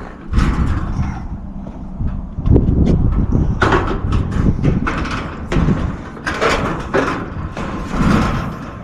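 Sheet-metal access door of a commercial rooftop HVAC unit being handled and fitted back into place: repeated clanks, knocks and scrapes of metal panel against the cabinet.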